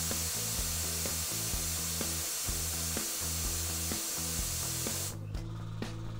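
Compressed air hissing out of the air compressor's safety valve, held open by its pull ring to bleed down the tank. The hiss cuts off suddenly about five seconds in when the ring is released.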